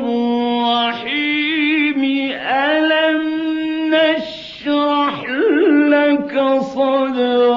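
A man's voice chanting Quran recitation in a slow, melodic style: long held notes with wavering ornaments, broken by short breaths.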